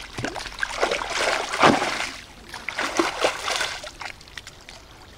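Splashing and sloshing in shallow muddy water as someone wades through it barefoot, in two runs of splashes, the loudest about one and a half seconds in.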